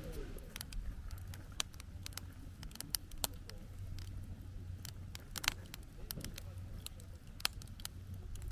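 Campfire of burning wood crackling, with irregular sharp pops and snaps over a low steady rumble.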